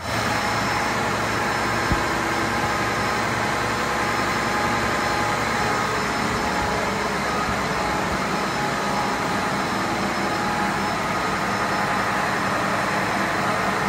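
Steady, loud machinery din of a car ferry's diesel engine room, with an MTU 12V 2000 M61 main engine running at constant speed. A single short knock about two seconds in.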